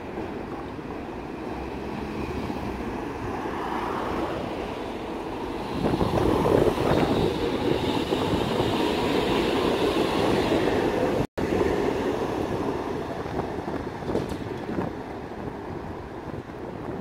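Low-floor electric tram rolling along street track, approaching, passing close by and pulling away. Wheel and motor noise builds to its loudest about six seconds in, then fades as it recedes.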